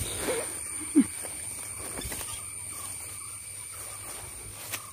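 Footsteps through grass and undergrowth under a steady, high-pitched drone of insects. About a second in there is a brief, loud, low squeak that falls in pitch.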